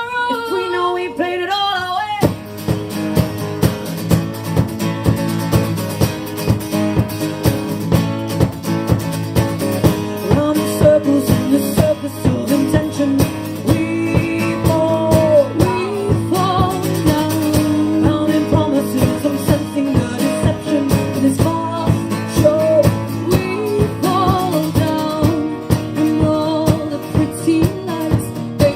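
Live music: a closing sung note gives way, about two seconds in, to strummed guitars with a steady beat and a melody line over them.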